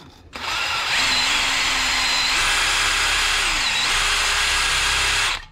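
Cordless DeWalt drill spinning a circular wire brush inside the rusty lower ball joint seat of a VW T5 Transporter's hub, scouring out corrosion. The motor whine steps up in speed about two seconds in, dips briefly, rises again, and stops just before the end.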